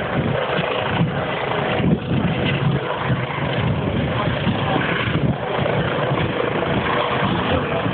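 Racing powerboats' engines running at speed, a steady drone mixed with a constant rushing noise.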